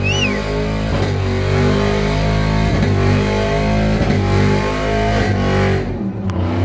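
Car doing a burnout: the engine is held at high revs that rise and dip again and again, over the hiss and squeal of spinning tyres. About six seconds in, the throttle eases and the tyre hiss drops away suddenly.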